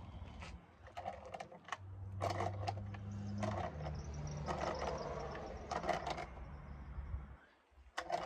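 Crimping tool being tightened onto the edge of a steel door to squash in the latch recess: a run of metallic clicks and knocks, with a low drone about two to three and a half seconds in, and a few sharp clicks near the end.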